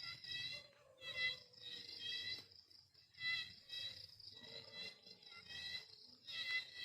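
High-pitched chirping animal calls, coming in short repeated bursts about once a second.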